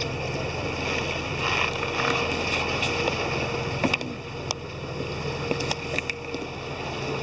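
Steady low hum of a boat's engine under way, with wind on the microphone and water noise; a few light clicks about four to six seconds in.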